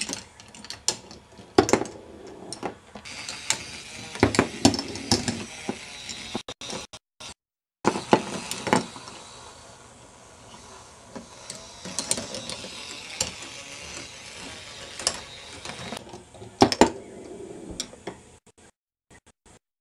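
K'nex ball machine running: plastic balls clacking and knocking along plastic tracks and gears, over the steady whir of its motorised lifts. The sound cuts out briefly about seven seconds in, and the clacks thin out near the end.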